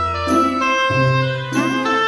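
Background music: bell-like chimes and tinkling notes over a bass line that changes note every second or so.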